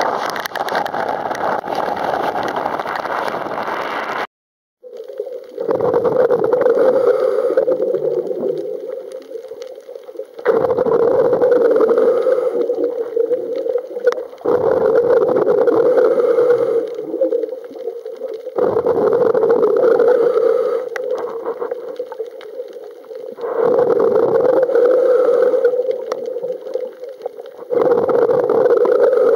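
First a steady noise of heavy rain on the sea and a boat motor, cut off after about four seconds. Then, underwater, a scuba diver breathes through a regulator in a slow cycle, with a surge of exhaled bubbles about every four seconds over a steady low hum.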